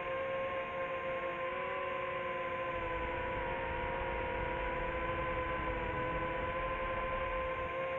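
Steady hum of a small drone's spinning propellers, with several tones whose pitch wavers slightly up and down together.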